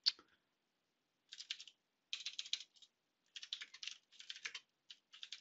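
Typing on a computer keyboard: several short bursts of quick keystrokes with brief pauses between them, after a single louder click at the very start.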